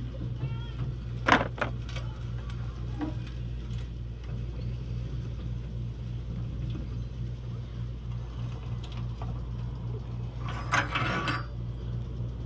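RV scissor-style stabilizer jack being turned with a 3/4-inch drive, its screw and gears working with a few sharp clicks and a louder rattle near the end, over a steady low hum.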